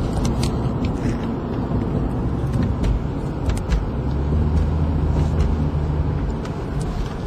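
A car driving, heard from inside the cabin: steady engine hum and road noise, with a few short clicks. The engine hum grows steadier and stronger about four seconds in.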